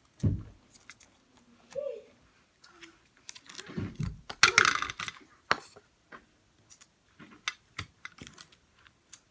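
Scattered light clicks and taps, with a brief rustle about halfway through, as hands handle paper, sticky notes and tape around a cardboard toilet-paper tube on a table.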